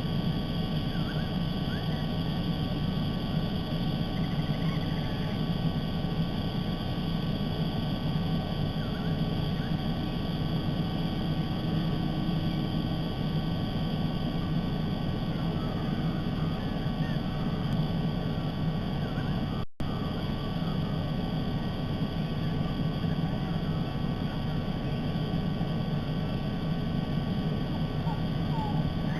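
Steady low outdoor rumble picked up by a nest-cam microphone, with faint, scattered bird chirps over it. The sound drops out for an instant about twenty seconds in.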